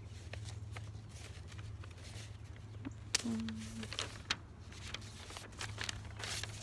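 Paper rustling and small handling clicks as a sheet is shuffled, with a brief low hum from a woman about three seconds in, over a steady low background hum.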